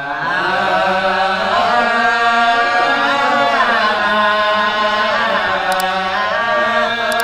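A man chanting a Sasak hikayat verse (tembang) into a microphone, held notes bending slowly up and down in long ornamented melodic lines, without a break.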